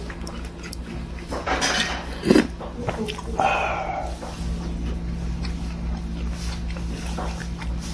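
A person sipping hot pork-bone soup broth from a spoon with short slurps, then chewing. A low steady hum sits behind.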